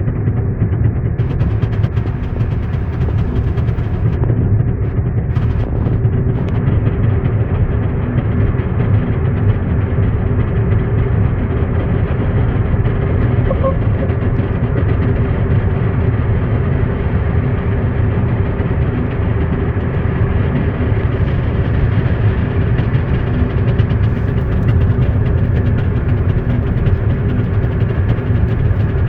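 2016 Hyundai Elantra's engine running steadily, making the odd noise that began after an oil change.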